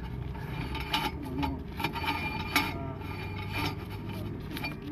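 Irregular scraping, rubbing and clicking of a sewer inspection camera's push cable being fed into a drain line, over a low steady hum.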